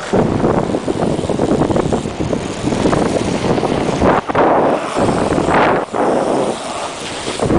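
Rush of wind on the microphone of a fast-moving inline skater, rising and falling in gusts that swell about four seconds in and again near six seconds.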